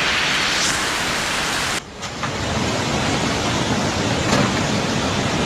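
Steady rushing noise of heavy rain and flowing floodwater, broken by a brief drop about two seconds in, then the same rush again.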